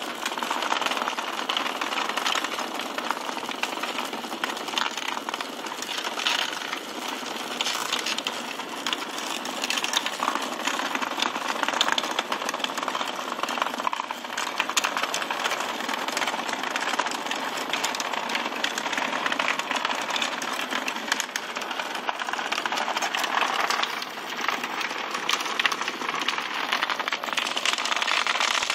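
Many Hexbug Nano toy bugs buzzing at once, their tiny vibration motors rattling them about on their rubbery bristle legs: a steady, dense rattle full of small clicks.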